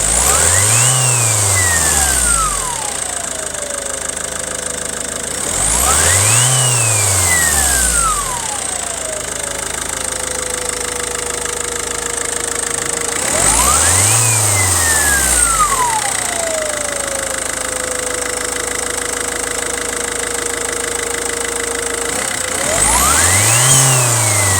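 Volvo V50 D1.6 turbodiesel engine revved briefly from idle four times. Each blip brings a howling whine that climbs sharply, then glides slowly down over a few seconds and settles into a steady lower whine at idle. The owner cannot locate the whine, having already checked the turbo hoses.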